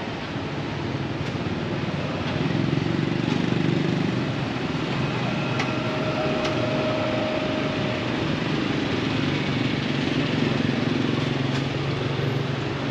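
Close street traffic: motorbike and car engines running and idling in a steady hum, with a higher held tone for a couple of seconds about halfway through.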